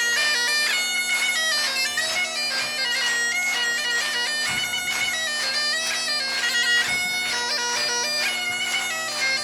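Galician bagpipe (gaita) playing a quick muñeira melody of rapidly changing notes over its steady drone.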